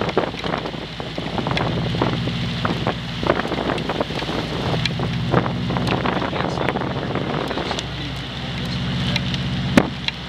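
A vehicle engine running, with wind noise on the microphone and scattered sharp knocks and taps throughout. The engine note fades briefly a little after eight seconds in.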